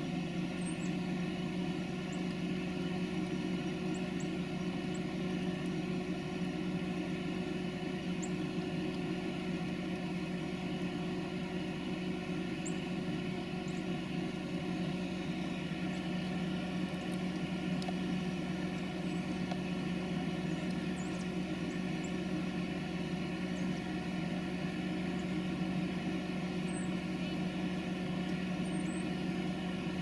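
A steady low engine hum, like a motor idling, holding two low tones without change. A few faint, short high chirps are scattered through it.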